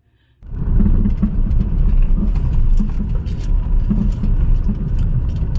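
Tata Tiago hatchback being driven, with steady road and engine noise that starts about half a second in. Faint light knocks (khat-khat) come from the front-left suspension on small jolts, the sign of a worn stabilizer link.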